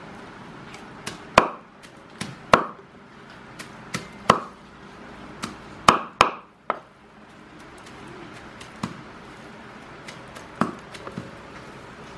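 Cleaver chopping minced chicken mixed with thin noodles on a round wooden chopping board: a dozen or so sharp chops at an uneven pace, some in quick pairs, the loudest in the first half.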